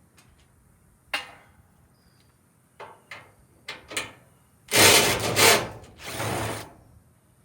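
Power driver spinning screws out of a washing machine's sheet-metal front panel in two short runs about five and six seconds in, with scattered clicks and clanks of metal parts before them.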